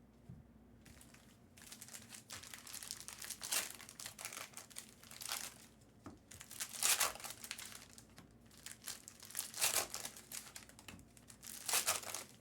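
Plastic trading-card pack wrappers crinkling and tearing as packs are opened by hand, in repeated bursts, the loudest about 3.5, 7, 10 and 12 seconds in.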